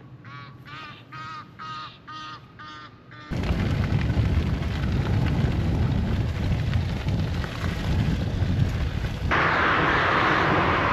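Geese honking over and over, about eight calls in three seconds. Then, after a cut about three seconds in, a loud low rumble of a recumbent trike rolling along a dirt track. Near the end this gives way to the steady hiss of motorway traffic.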